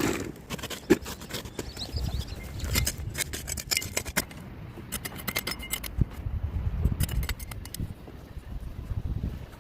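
A run of clicks, scrapes and light clinks, irregular and scattered, from clearing up the charred debris of an old campfire.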